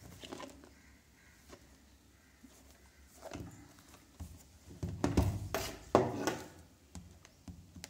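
Shrink-wrapped cardboard phone box handled and turned over on a wooden table: scattered soft knocks and rustles, loudest about five to six and a half seconds in.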